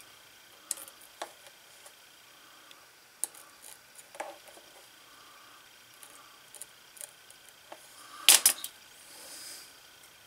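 Light scattered clicks and taps of a small metal craft knife being worked between a glued-on leather strap and a leather holster, prying the strap loose. About eight seconds in comes a louder, sharper double clack of metal handling.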